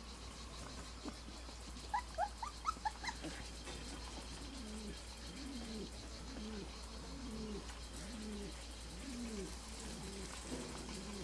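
A burst of about six short, high squeaks from Australian Shepherd puppies about two seconds in. After that comes a run of low, falling coos from a bird, repeating about every half second to second.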